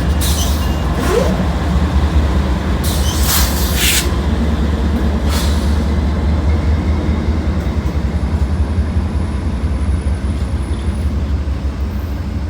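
Diesel-powered train passing close by with a steady low engine and rail rumble, and a few brief hisses in the first five seconds.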